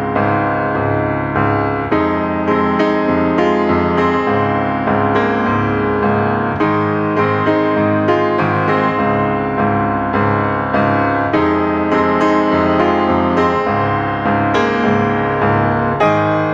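Background piano music, a steady succession of notes.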